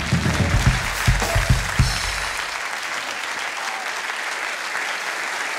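Studio audience applauding steadily. A short bass-and-drum band sting plays under the clapping and dies away about two seconds in.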